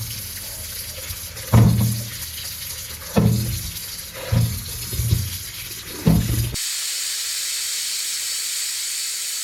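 Tap water running into a sink while peeled potatoes are washed, with several dull knocks as they bump about. About two-thirds of the way through it cuts abruptly to a steady hiss.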